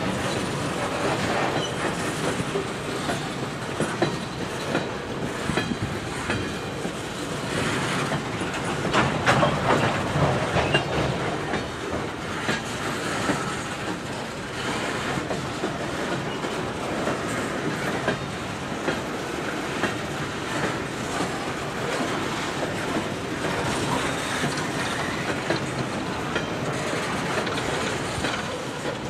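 Coal hopper cars of a long freight train rolling past, their steel wheels clattering over the rail joints in a steady clickety-clack. The sound swells briefly about a third of the way through.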